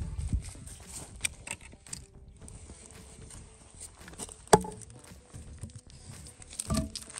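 Firewood being handled for a campfire: light scattered knocks and rustling, then one sharp loud knock about halfway through and a few more knocks near the end.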